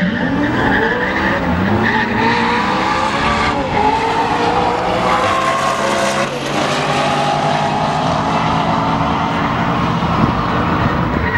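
A silver Audi R8 and a white Audi estate pulling away from the drag strip start line and accelerating hard side by side. Their engine notes climb and drop back at each gear change, several times over.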